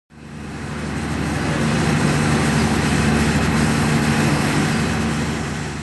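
Steady outdoor city and rail-yard noise: an even rushing hiss over a low engine-like hum, fading in over the first second and dropping away near the end.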